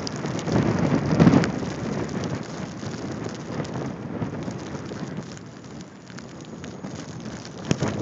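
Blizzard wind buffeting a phone's microphone: a steady rushing noise with low rumbling gusts, the strongest about a second in.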